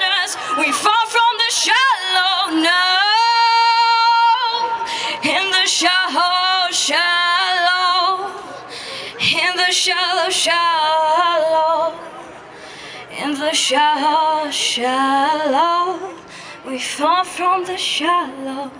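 A woman singing solo into a handheld microphone, with long held notes and vibrato.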